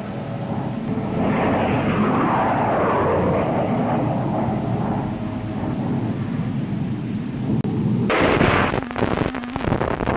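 Low rumbling, explosion-like noise, with a noisy sweep falling in pitch about two seconds in. About eight seconds in, a sudden loud burst of noise cuts in, then breaks up into choppy, stuttering cuts.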